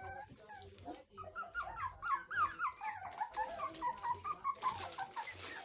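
A litter of young puppies squeaking and whining, many short high squeaks overlapping in quick succession.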